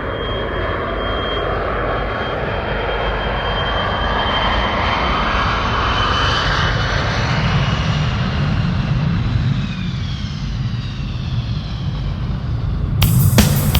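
A loud, steady rushing engine noise passing by, like a jet aircraft, its whining tones sliding down in pitch. Loud music with hard drum hits cuts in abruptly near the end.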